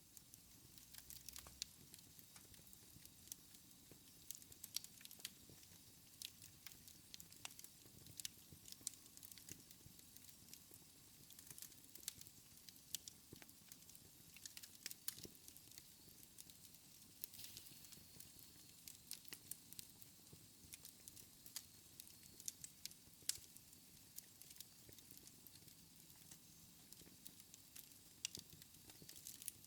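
Wood fire in a fireplace crackling quietly: irregular sharp pops and snaps over a low, steady hiss.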